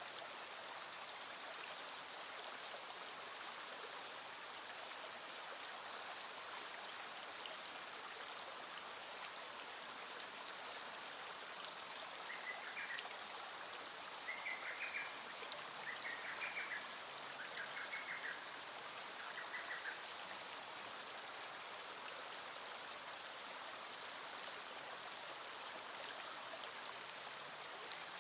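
Small stream flowing steadily, with light rain falling. Near the middle, five short, rapidly pulsed calls stand out briefly above the water.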